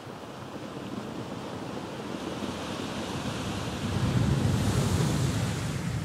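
Ocean surf on the shore: a wave builds and breaks, the wash growing to its loudest about four to five seconds in and then easing, with some wind on the microphone.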